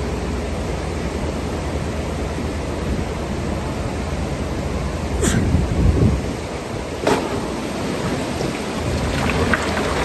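Excavator working in water: a steady low rumble and rush, with heavy thuds about halfway through and a sharp knock soon after, then a crackling patter like gravel and water splashing down near the end.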